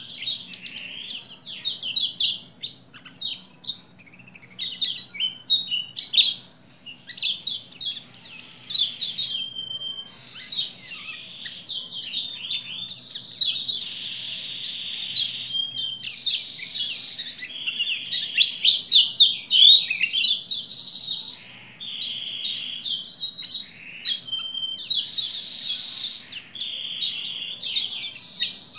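Caged white-eye (pleci Lombok) singing a long, nearly unbroken chattering song of rapid high chirps and trills, with only short pauses. This is the in-full-song (gacor) singing used to stir other white-eyes into song.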